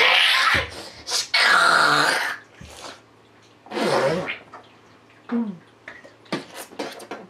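A boy coughing and gagging in three loud, harsh bursts, then short gasping breaths near the end: his reaction to swallowing an undiluted mixture of syrup, lemon juice, mustard and other strong flavours.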